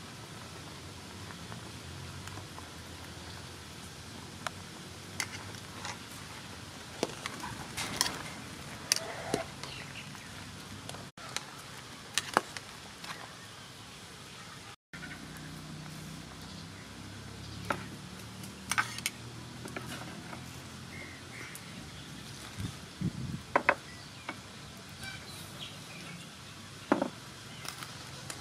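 Pot of prawn sour soup at a rolling boil: steady bubbling with scattered short pops and clicks.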